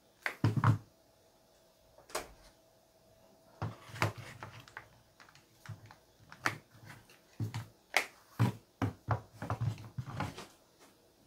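Plastic spring clamps and a clamp holder being handled on a wooden workbench: a series of irregular knocks, clicks and clatter, some with dull thuds.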